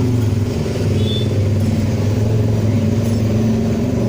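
A motor vehicle engine running steadily at a fairly even speed, with one short high whistle-like note about a second in.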